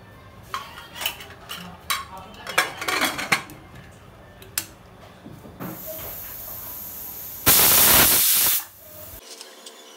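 Metal clattering as the pressure cooker's lid and weight go on, then steam hissing from the cooker, with a loud burst of steam from the weight valve lasting about a second near the end.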